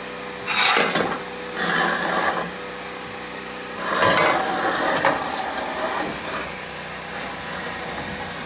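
Steel exhaust pipe with a welded-in cutout scraping and knocking against the truck's underside as it is slid into place: three rasping bursts, the last and longest about four seconds in.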